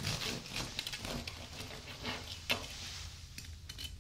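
Serrated bread knife sawing through the hard, floured crust of a round country loaf (miche). The crust breaks into many small crackles and snaps as the blade bursts little pieces of it, with a sharper crack about two and a half seconds in, thinning out near the end.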